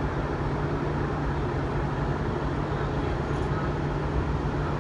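Diesel engines of a Gozo Channel car ferry running at its berth: a steady low drone with a constant hum.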